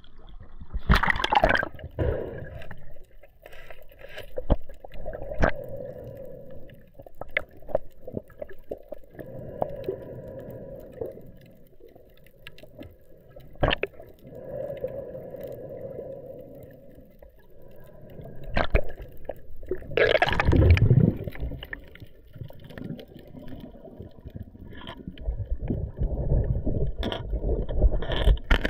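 Underwater sound from a camera under the sea: muffled gurgling and water movement with scattered sharp clicks, and a louder rush of noise about twenty seconds in.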